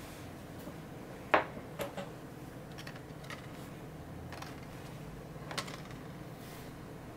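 Small wooden business card holders with brass end caps being handled and set down on a wooden tabletop, and business cards slipped into their slots. A sharp knock comes a little over a second in, followed by a few lighter clicks and taps.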